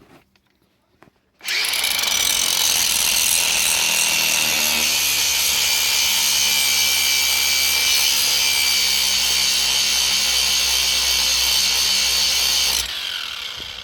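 Cordless angle grinder with a grinding disc running steadily at full speed, grinding a snapped bolt stub flat on a small block Chevy cylinder head. It starts abruptly about a second and a half in and spins down with a falling whine near the end.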